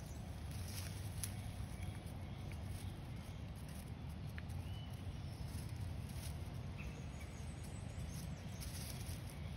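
Quiet outdoor ambience: a steady low rumble with a few faint, short bird chirps and occasional soft clicks.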